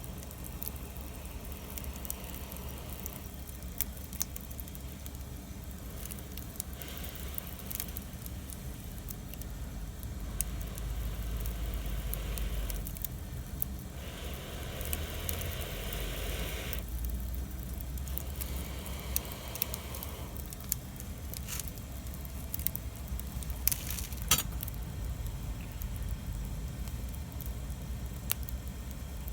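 Wood fire burning, crackling with scattered sharp pops, a few louder ones about three quarters of the way through, and a soft hiss that swells now and then for a few seconds, over a steady low rumble.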